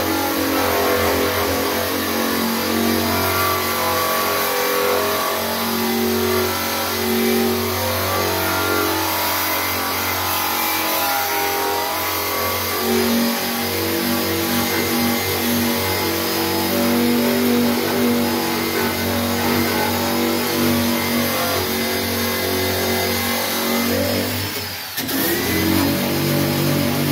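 Electric power tool fitted with a stripping disc, grinding paint and rust off the steel dash to bare metal. Its pitch wavers as it is pressed into the metal. About 25 seconds in it briefly slows and then spins back up.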